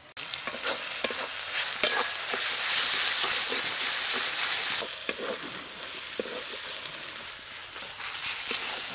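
Onions, garlic paste and ginger paste sizzling in hot oil in a metal kadai, with a metal spatula scraping and clinking against the pan as it stirs. The sizzle grows louder about two seconds in and eases off around the five-second mark.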